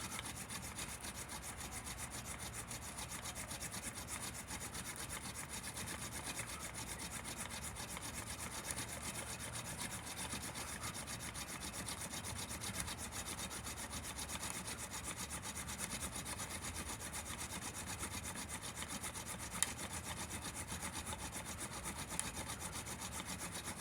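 Hand-drill friction fire: a horseweed spindle tip spun back and forth between the palms, grinding into an incense cedar baseboard with a steady, rhythmic wooden rubbing. The drill is already smoking, the sign that a coal is building in the notch.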